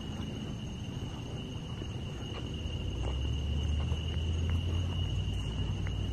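Crickets trilling steadily in the night, a continuous high-pitched chorus. Faint scattered crunches of footsteps on gravel sound under it, and a low rumble swells up from about three seconds in.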